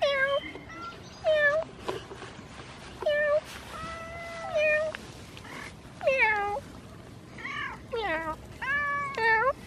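Domestic cat meowing repeatedly, about eight meows, each under a second, with one longer drawn-out meow near the middle.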